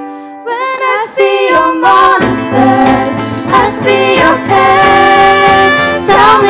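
Acoustic ukulele band performing. Singing comes in about half a second in over ringing ukulele notes. About two seconds in the full band joins, with several ukuleles, a bass ukulele (U-Bass) and a cajon, and the music grows louder.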